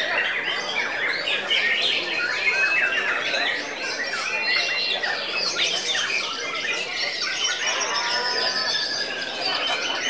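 Caged white-rumped shamas singing, a dense mix of overlapping whistles, trills and chattering phrases with no break.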